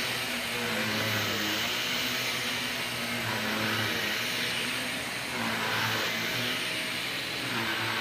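Cordless stick vacuum running as its powered brush head is pushed back and forth over a rug: a steady suction hiss over a low motor hum, its pitch rising and falling slightly with the strokes.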